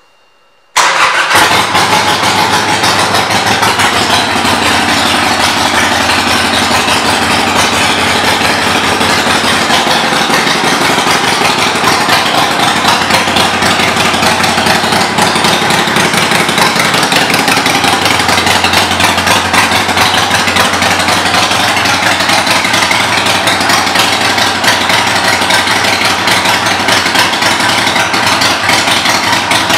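Harley-Davidson Iron 883's air-cooled 883 cc V-twin running at a steady idle through Vance and Hines exhaust pipes, loud. It comes in abruptly about a second in.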